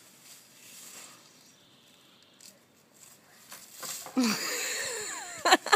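Dry leaves rustling and crackling as a handful is dropped into a plastic green-waste bin. This starts suddenly about four seconds in, after a quiet stretch, and ends in a few sharp clicks.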